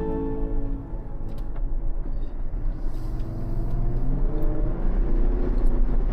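Jeep driving on the highway: its engine runs with a continuous rumble of road noise.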